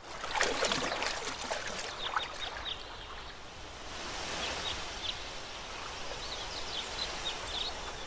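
Lakeside nature ambience: a soft, steady rush of water with short, high bird chirps dotted through it.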